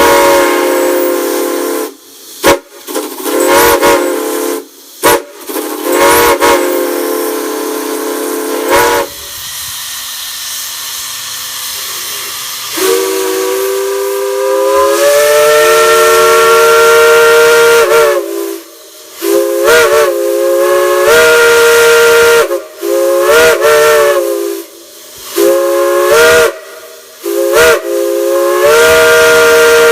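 A multi-chime whistle blowing a loud chord of several notes, with the hiss of escaping steam. It sounds in long blasts broken by quick cut-offs, drops to a quieter hiss for a few seconds midway, then opens again with its pitch sliding up. It ends in a run of short toots and a last long blast.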